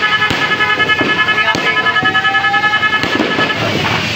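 A ground fountain firework spraying sparks, with a dense hiss that pulses several times a second. Several steady high tones sound together over it and stop about three and a half seconds in.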